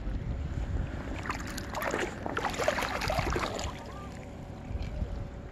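Water lapping and sloshing close by over a low rumble of wind on the microphone, with a burst of splashing and sloshing for about two seconds in the middle.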